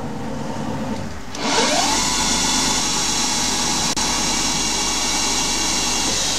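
Hercus PC200 benchtop CNC lathe spindle spinning up, with a brief rising whine about a second and a half in, then running steadily at speed with a loud steady hiss and low hum.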